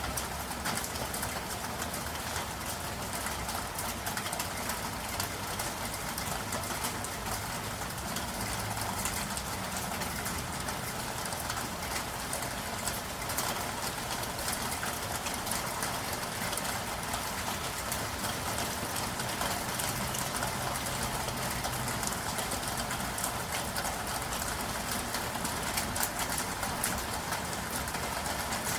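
Steady city rain: an even hiss of rainfall with scattered drop ticks over a low, continuous rumble of traffic.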